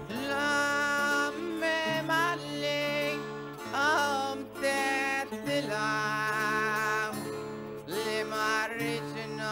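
Background music: strummed acoustic guitar with a walking bass line under a singing voice with a wide, wavering vibrato.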